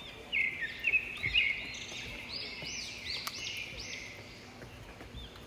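Birds calling: a series of short, high, arched chirps mixed with brief held notes, loudest in the first second and a half, over a faint steady hiss.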